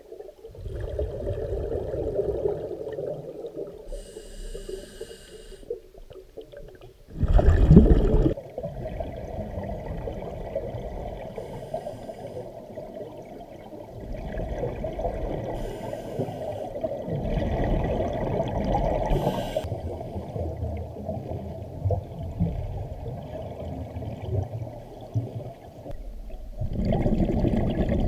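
Scuba diver breathing through a regulator underwater: short hissing inhalations alternating with longer rumbling bursts of exhaled bubbles, the loudest burst about seven seconds in.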